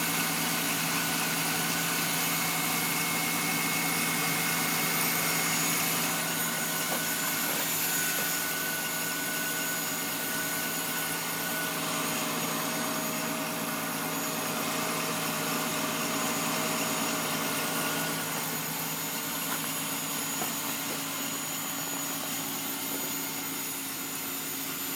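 Car engine idling at raised cold-start warm-up revs, with a steady high-pitched whistle heard through the closed hood. The whistle occurs only during warm-up and goes away once the warm-up idle drops.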